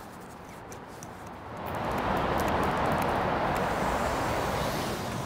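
Road traffic going by: a vehicle's tyre and engine noise swells up about a second and a half in, holds, then eases off near the end.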